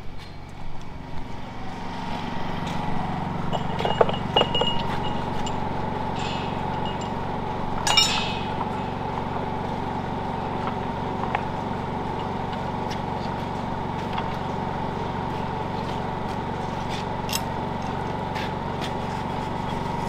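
Steady mechanical hum, with a few short metallic clinks of tools on the steel auger fittings about four and eight seconds in.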